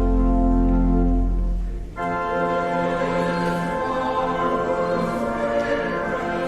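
Church organ music: a held chord with a deep pedal bass releases about two seconds in, and a new sustained chord begins right after.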